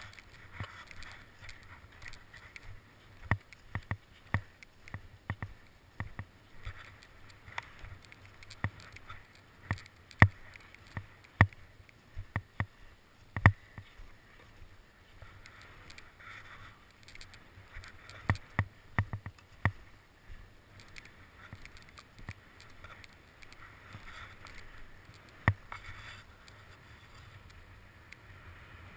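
Irregular sharp clicks and knocks of skis and ski poles striking crusty, churned snow as a skier side-steps and walks uphill on skis. They come in clusters and thin out in the last few seconds.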